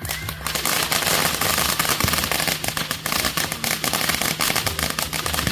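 Fireworks crackling: a dense, rapid run of sharp pops with no let-up.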